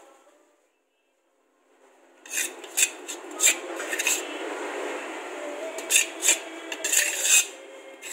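A metal spoon clinking and scraping against dishes: after nearly two seconds of near silence, a run of sharp clinks over a steady rushing background.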